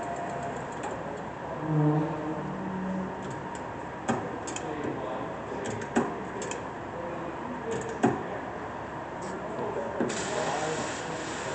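Hardinge DSM-59 second-operation lathe running in low range, reverse: a steady mechanical hum with a sharp click about every two seconds. More high hiss joins in near the end.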